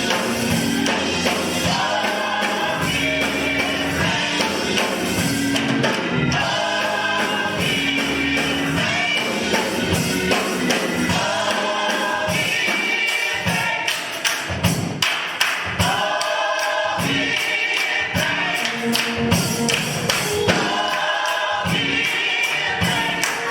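Gospel music: a choir singing in phrases over a band with a steady beat.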